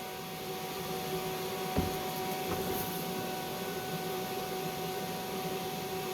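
Steady machine hum and hiss with a few constant whining tones, and a single light knock a little under two seconds in.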